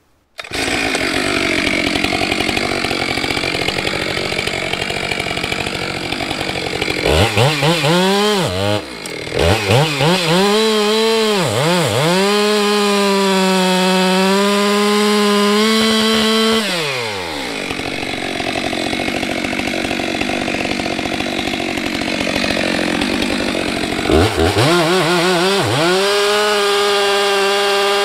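Stihl MS462 C-M two-stroke chainsaw bucking logs. It revs up to full throttle about seven seconds in, the revs dipping several times as the chain bites, then holds a steady high pitch through the cut before dropping back to idle. It revs up again for a second cut near the end.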